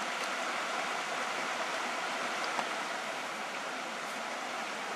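Steady rush of a shallow river running over stones.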